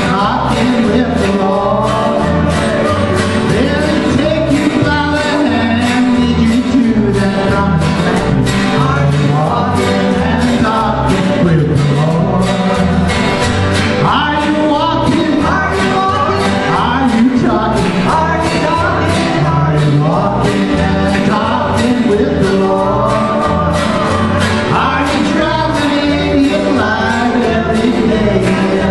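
Live country-gospel song: a man and a woman sing together at microphones over strummed acoustic guitars and a small band keeping a steady beat.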